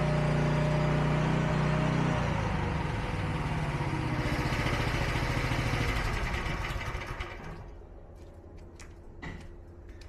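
Huayee SHY360 mini skid steer's small engine running steadily, dropping to a lower, weaker note about two seconds in, then fading out after about seven seconds. A few footsteps follow near the end.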